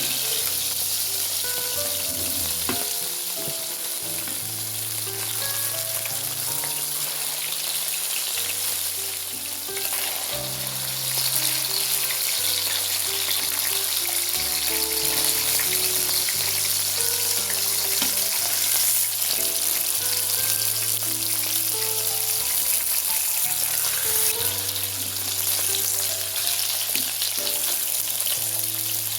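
Food frying in hot fat in a pan: a steady crackling sizzle, with background music playing a slow bass line and held notes over it.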